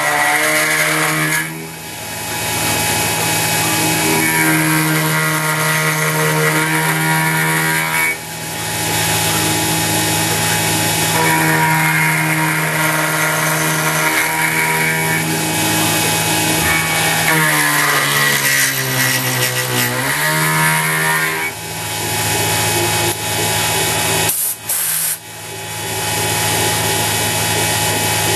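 CNC X2 mini mill machining 6061 aluminum: the spindle runs steadily with a high whine while the axis motors hum in pitches that rise and fall as the table traverses back and forth. The sound dips briefly a few times.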